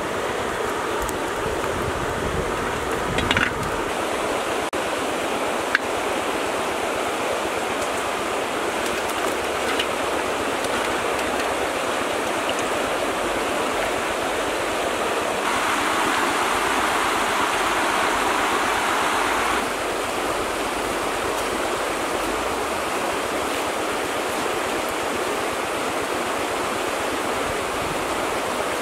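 Steady rush of flowing stream water, louder and brighter for about four seconds in the middle, with a couple of brief knocks in the first few seconds.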